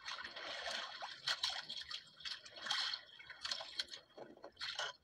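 Sea water splashing and lapping against the hull of a small wooden outrigger boat in uneven bursts.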